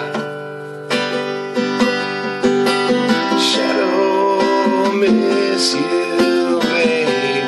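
Music from a self-written song, an instrumental stretch of strummed acoustic guitar chords.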